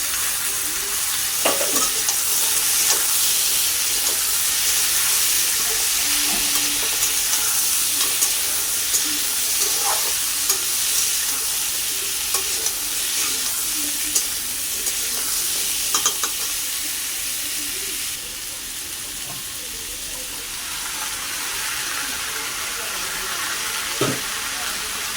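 Food sizzling as it fries in oil in a pan while being stirred, with a few sharp knocks of the stirring utensil against the pan. The sizzle eases a little about two-thirds of the way through.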